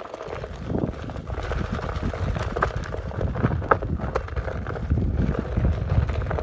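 Wind rumbling on the microphone of a rider on a moving Onewheel Pint electric board, with the board's tyre rolling over gravelly dirt and scattered sharp clicks and knocks.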